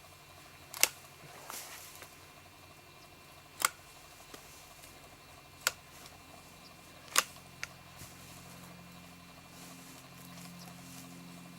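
Pruning shears snipping side branches and needled shoots off a pine tree: four sharp snips a second or two apart, with a couple of fainter clicks between them.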